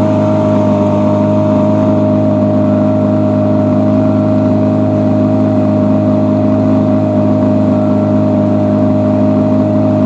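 Yamaha 9.9 hp outboard motor running at a steady, unchanging speed, pushing an inflatable boat along the river. It holds a constant pitch with a clear steady whine above the engine note.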